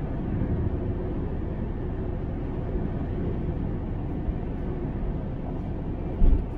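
Steady low road and engine rumble heard inside the cabin of a moving car, with a brief low thump near the end.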